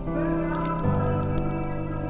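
Slowed-down, reverb-heavy pop song in an instrumental stretch: sustained chords that shift to new low notes about a second in, over light ticking percussion.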